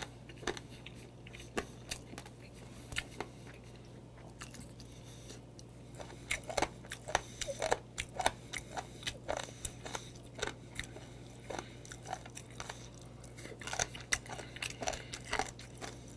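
Close-miked chewing of mideoduk (warty sea squirt), with short mouth clicks and crunches that are sparse at first and come more often from about six seconds in.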